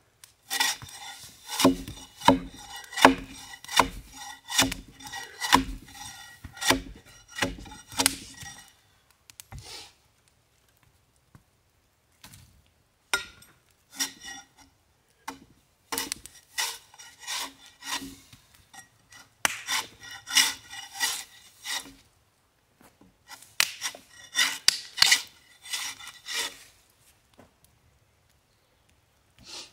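Long-handled bark spud scraping bark off a log in repeated strokes, about two a second. The strokes come in several runs with short pauses between them.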